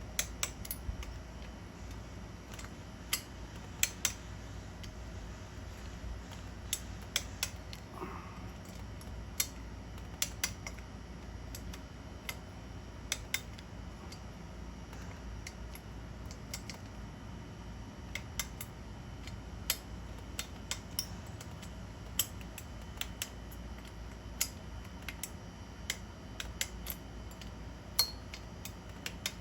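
Sharp metallic clicks and ticks of hand tools, irregularly spaced, as the cylinder head bolts of an Onan P218G twin-cylinder engine are torqued, over a low steady hum.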